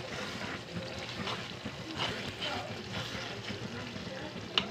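Chunky red sauce simmering and spluttering in a frying pan, with a sharp click near the end.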